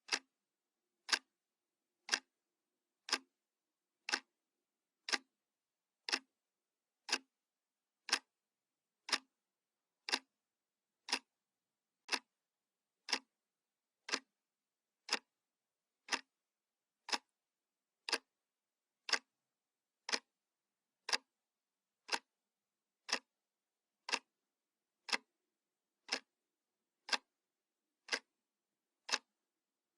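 Analog clock ticking once a second: short, sharp, identical clicks with dead silence between them.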